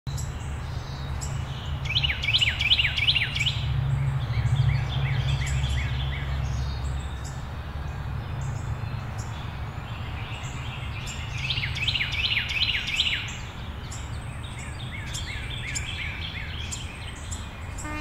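A songbird singing two phrases about ten seconds apart, each a quick run of falling notes followed by a lower, faster trill. Under it is a low background rumble that eases after about seven seconds.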